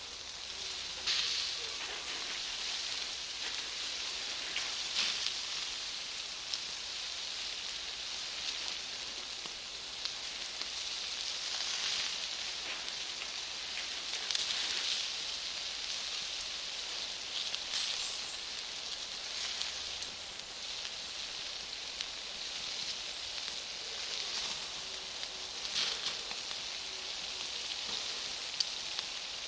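Charcoal and wood fire burning with a steady hiss, broken by occasional sharp pops and crackles from the Iwate cut charcoal.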